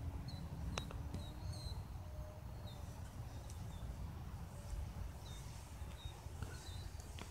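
Wind rumbling on the microphone, with faint short high chirps of small birds repeating every second or so and a faint steady hum. Two light clicks come about a second in.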